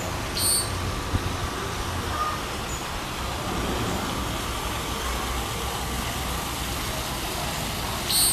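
Outdoor city ambience: a steady low rumble of traffic noise, with a brief high blip about half a second in and another near the end.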